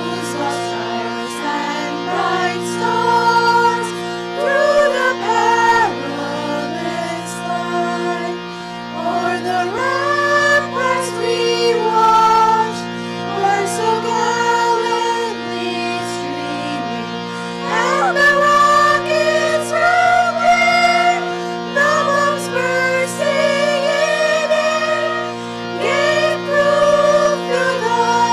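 A small choir of mostly young women singing a national anthem in unison over a steady held drone.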